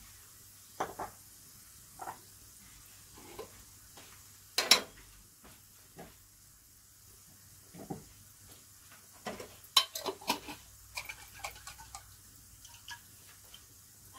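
Sliced onions frying in a non-stick wok with a faint sizzle, under scattered short knocks and scrapes of a spatula against the pan. The loudest knock comes about five seconds in, and there is a quick cluster of them around ten seconds.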